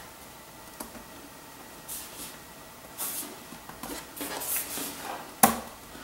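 Handling noises from the aluminium bottom cover of a MacBook Pro being pressed and shifted back onto the laptop: soft scrapes and rustles, a faint click, and one sharp click near the end.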